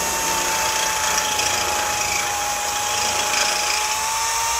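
Handheld power tool running at a steady speed on the rusty sheet steel of a truck door: a steady high whine over a harsh hiss. It is cutting free the rivets and hidden spot welds that hold the rotten door bottom.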